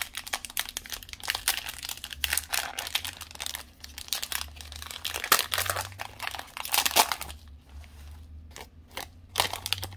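Plastic cello-pack wrapper of trading cards crinkling and crackling as gloved hands tear it open and handle it, the rustling easing off for a moment near the end.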